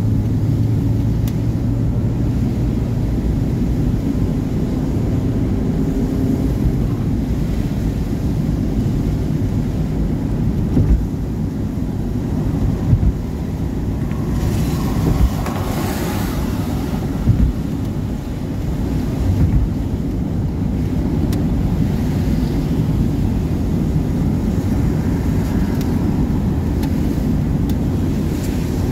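Car driving on a wet highway, heard from inside the cabin: steady low tyre and engine rumble with the hiss of wet road. There are a few light bumps. Around the middle a louder hiss swells and fades.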